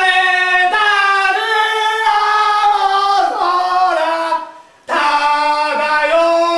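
A man singing at the top of his voice, high and strained, in long held notes that step up and down in pitch. He breaks off for a breath about four and a half seconds in, then starts again.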